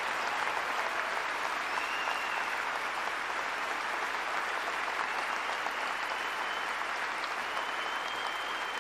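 Large arena crowd applauding steadily, an even wash of many hands clapping.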